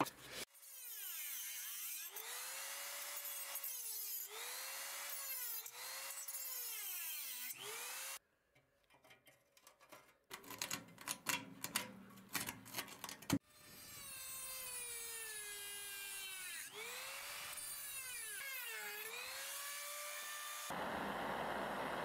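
A power drill's motor whining, its pitch sagging and recovering again and again as the bit bogs down in rusted screws. Midway there are a few seconds of sharp metal scraping and clicking from a pick working at the rust, and near the end a steady hiss of compressed air blowing the debris away.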